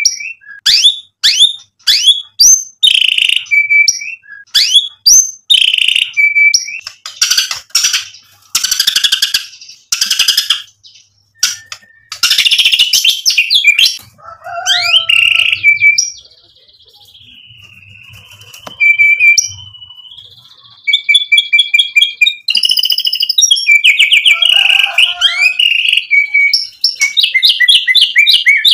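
White-rumped shama (murai batu) singing a loud, varied song full of mimicked phrases. It sings sweeping whistles, fast trills and several harsh rattling bursts, with a quieter, thin warble around the middle and rapid repeated notes near the end.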